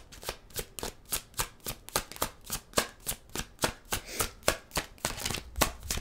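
A deck of tarot cards shuffled by hand, the cards snapping together in quick, regular strokes, about three or four a second.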